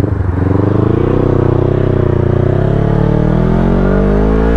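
Motorcycle engine with a Leovince LV10 aftermarket exhaust pulling away from a stop and accelerating, its note rising steadily.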